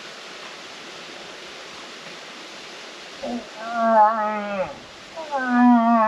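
A hand-held moose-calling horn voiced to imitate a cow moose: a long, wavering call beginning about three seconds in that falls in pitch at its end, then a second call starting just after five seconds. A faint steady hiss lies under the first half.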